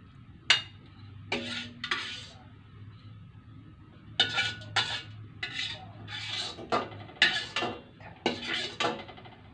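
Metal spatula scraping and clinking against a stainless steel wok as fried noodles are scooped out onto a plate: a sharp clink about half a second in, then a run of short scrapes that come thick and fast in the second half.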